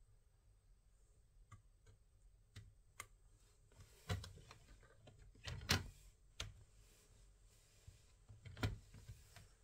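Faint, irregular clicks and knocks of small hard objects being handled, with a few louder knocks, the loudest a little over halfway through and another near the end.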